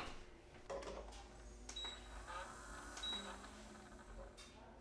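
Faint clicks and knocks of the plastic housing of a table tennis robot being handled and fitted together, with two short high beeps about 1.7 and 3 seconds in.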